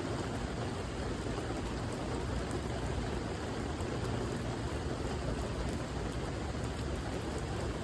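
Steady rain falling: an even hiss with faint ticks of individual drops.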